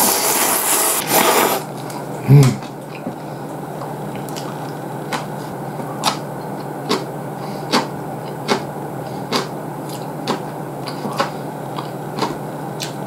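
Ramen noodles slurped loudly for about a second and a half, then a brief low vocal sound, then chewing with regular wet mouth clicks a little under a second apart over a steady low hum.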